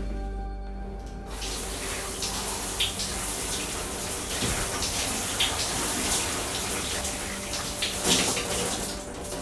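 Shower running: water spraying and splashing steadily, starting about a second in, with a few sharper splashes.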